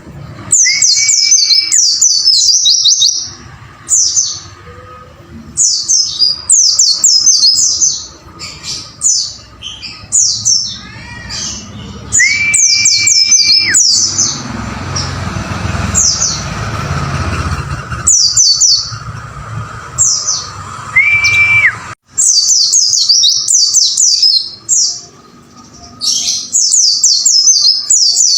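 White-eye (pleci) singing in fast bursts of high, downward-slurred chirps, the 'wucit wucit' chatter, repeated in clusters. Three long, steady whistles are mixed in: about a second in, around twelve seconds, and near twenty-one seconds.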